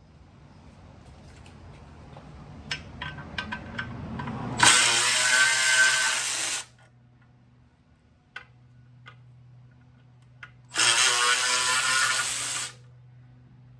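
Electric ratchet spinning out clutch pressure plate bolts in two runs of about two seconds each, with clicks and clinks of the socket and metal parts before and between them.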